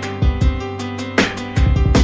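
Background music: a song with guitar and a drum kit, the kick drum beating steadily under held chords.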